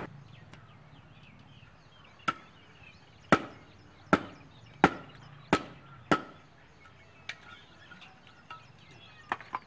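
Billhook chopping a stick of firewood: six sharp chops about two-thirds of a second apart, then a few lighter knocks near the end.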